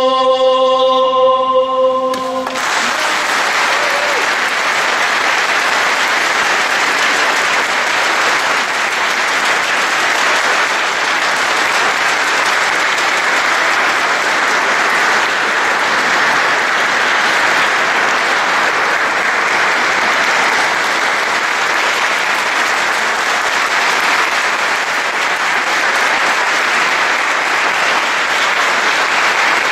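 A male singer's held final note, backed by the choir, ends about two and a half seconds in, and a large audience breaks into steady applause that runs on.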